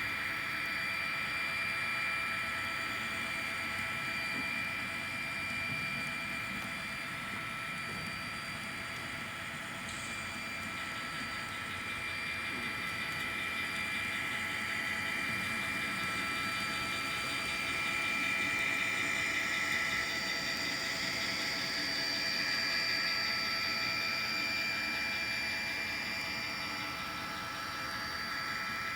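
N scale model train running on track: the small electric motors of the locomotives give a steady, high whine over the rolling noise of the wheels on the rails.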